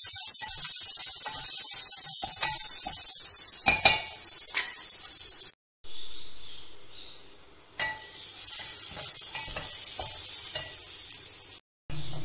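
Sliced onions with ginger-garlic paste sizzling in hot oil in a metal pot, with a wooden spoon stirring and scraping against the pot in frequent small clicks. The sound cuts out completely twice, briefly.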